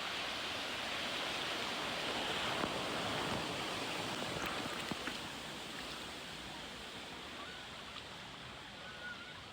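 Rushing, churning water of a fast-flowing water-park rapids river, swelling a couple of seconds in and easing off toward the end.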